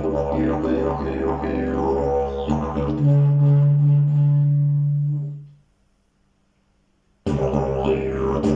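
Fiberglass slide didgeridoo playing a drone with shifting overtones. About three seconds in it moves to a louder, steady held note that fades out. After a pause of about a second and a half, the drone starts again abruptly.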